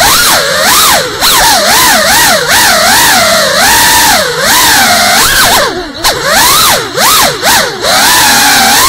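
GEPRC Cinelog 35 cinewhoop's brushless motors and ducted propellers whining, the pitch swooping up and down rapidly with the throttle, with a few short drops near the middle.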